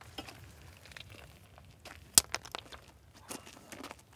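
Faint crunching and crackling of salt crust being worked, with a few sharp clicks, the loudest about two seconds in.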